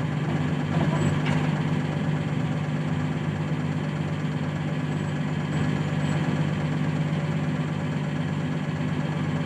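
Heavy equipment engine idling steadily, a constant low hum that stays even in pitch and level.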